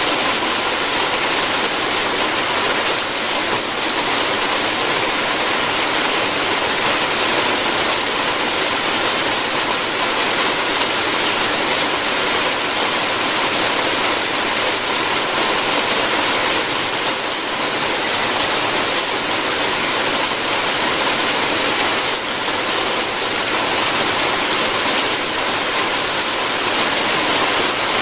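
Steady, heavy rain falling on a roof, a dense even hiss of drops.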